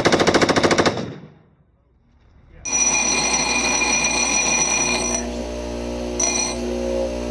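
Mk 48 light machine gun firing one rapid burst of about a second, fed from a backpack ammunition pack. After a short gap, a steady whine with several held tones comes in, its highest tones cutting in and out.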